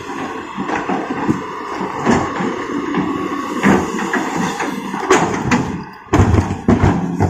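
Heavy excavator's diesel engine running under load while big rocks knock and thud against each other and the steel bed of a dump truck, with heavier thuds near the end.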